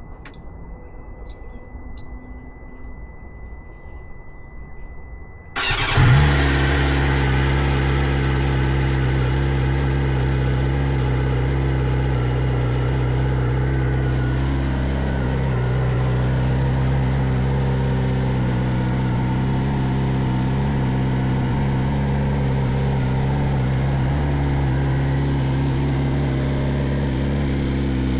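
BMW S1000RR inline-four motorcycle engine on its stock exhaust, started with a short burst after a few seconds of a faint steady whine, then settling into a steady idle.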